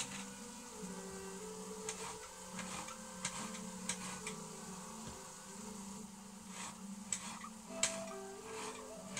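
Kitchen knife slicing raw potato into thin slivers on a plastic chopping board, irregular sharp clicks as the blade meets the board, over a pan of beef mince sizzling and bubbling on the hob.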